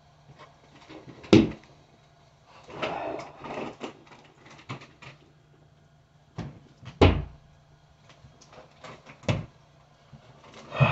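Three sharp thumps, with quieter knocks and clicks between them.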